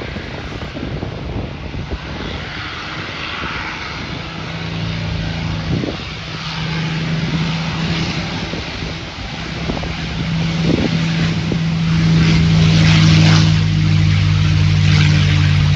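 P-51D Mustang's Packard Merlin V-12 at full takeoff power: a steady propeller-engine drone that comes in about four seconds in and grows louder as the fighter speeds down the runway toward lift-off.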